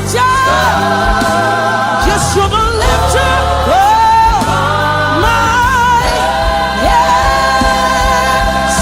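Gospel choir singing with instrumental accompaniment: held notes that slide between pitches over a steady bass and a beat.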